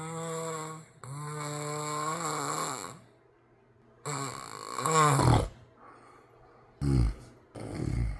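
A man snoring loudly, with several drawn-out snores each holding a steady buzzing pitch. The third snore drops in pitch at its end, and two short, deep snores follow near the end.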